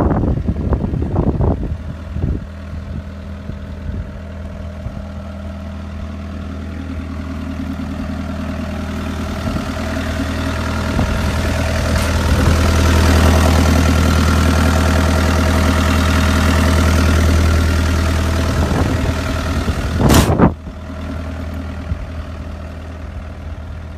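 John Deere 333E track loader's 100 hp turbo diesel engine running steadily. It grows louder and fuller through the middle, then drops back sharply after a short loud burst about twenty seconds in.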